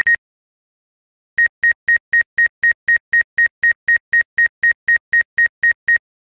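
Electronic alert beeps from the DJI GO drone-control app: a quick double beep, then a steady run of high-pitched beeps, about four a second, for about four and a half seconds, stopping abruptly.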